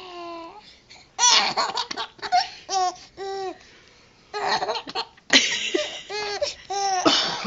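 A baby laughing in repeated high-pitched bouts of short arching squeals. Sharp coughs from a man set the laughter off, about a second in and again about five seconds in.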